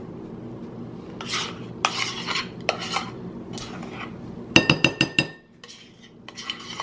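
A metal spoon scrapes thick cream cheese mixture out of a bowl with short scraping strokes. About halfway through it gives a quick run of about six sharp, ringing taps against the bowl to knock the mixture off.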